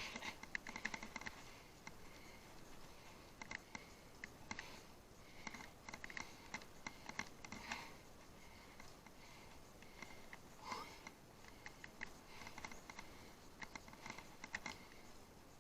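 Faint scattered clicks and scratchy rattles of a bicycle ridden over rough ground, picked up by a head-mounted action camera.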